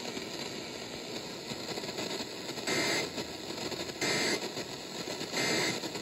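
Weather radio speaker hissing with reception static, then three short data bursts about 1.4 seconds apart: the EAS end-of-message code that closes a NOAA Weather Radio severe thunderstorm warning.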